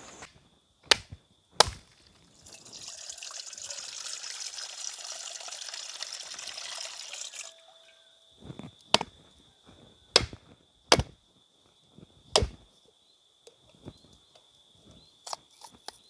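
Two sharp machete chops, then a rushing hiss lasting about five seconds. After that, a dry coconut is struck hard several times, one sharp crack about every second, until it splits open, over a steady high insect drone.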